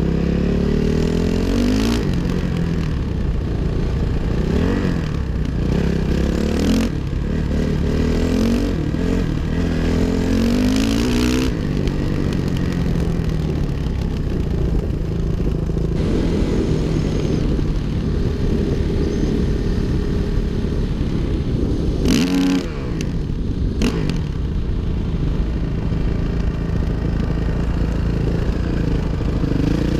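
2005 Suzuki RM-Z450's single-cylinder four-stroke engine under way, revving up and easing off again and again as the bike is ridden. A brief knock cuts in about three quarters of the way through.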